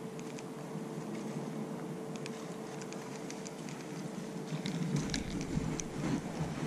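Fishing reel being wound in during a lure retrieve: a faint steady whine with scattered small clicks. From about five seconds in, a low rumble of rod handling or wind on the microphone comes up.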